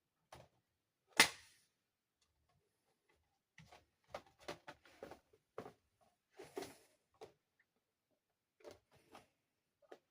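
Plastic toy dollhouse parts clicking and tapping as they are handled and fitted together: one sharp snap about a second in, then a scatter of smaller clicks and knocks.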